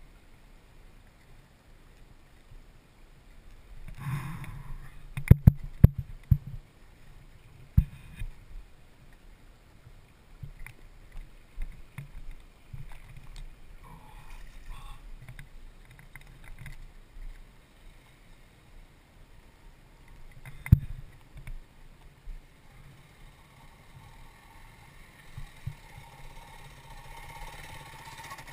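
Shallow creek water running over granite slabs, heard as a steady wash, with several sharp knocks against the helmet camera, mostly about five seconds in and once more later. Near the end a faint motor hum comes in as a dirt bike works through the creek crossing.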